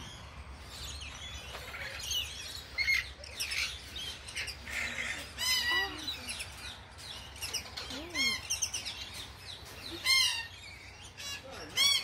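Many birds in a walk-through aviary chirping and squawking, with a few louder, clearer calls about halfway through and again near the end.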